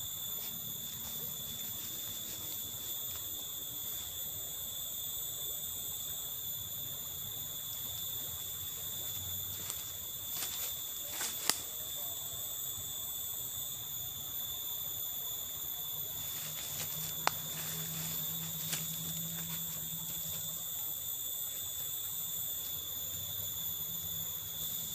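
Steady, high-pitched insect chorus, with a few sharp clicks around the middle.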